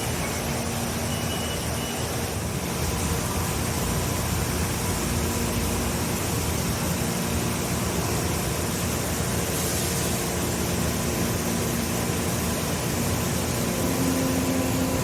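CNC machine running: a steady rushing noise with a faint constant hum underneath, unchanging throughout.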